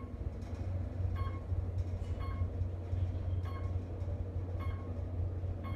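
Otis traction elevator car travelling in its hoistway: a steady low rumble of the ride, with a light tick about once a second.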